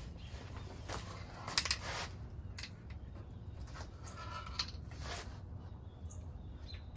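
Aerosol spray paint can hissing in several short bursts during a paint touch-up, the longest and loudest about one and a half seconds in, over a steady low hum.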